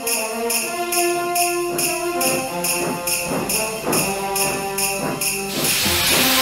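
Festive Christmas background music with sustained instrument notes and sleigh bells shaken in a steady beat; a loud cymbal-like swell comes in near the end.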